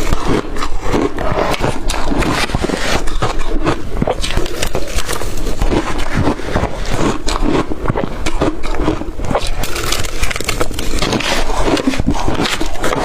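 Close-miked chewing of blender-crushed ice: a dense, unbroken run of loud crunches.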